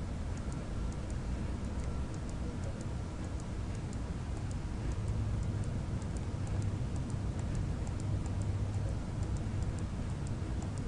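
Faint, irregular computer-mouse clicks, several a second, over a steady low hum.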